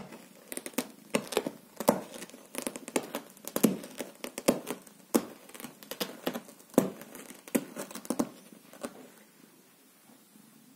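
Domestic cat sharpening its front claws on a carpet: an irregular run of sharp scratching strokes as the claws catch and pull at the pile, stopping near the end.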